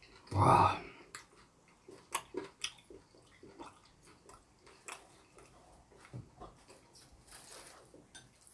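Eating sounds: chewing and scattered light clicks of utensils, with one short, louder noise about half a second in.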